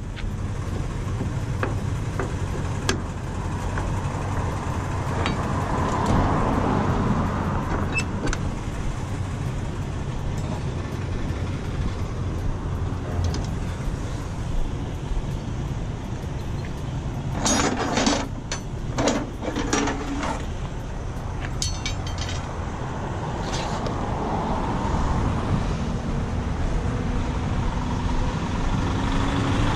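Steady low rumble of a truck engine idling, with a cluster of sharp knocks and clicks about 18 to 22 seconds in.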